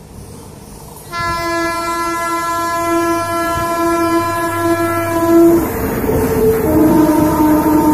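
WAP7 electric locomotive horn sounding one long blast of about four and a half seconds as the express approaches at speed. The train's running noise then swells as the locomotive and coaches pass, and the horn sounds again, slightly lower in pitch, near the end.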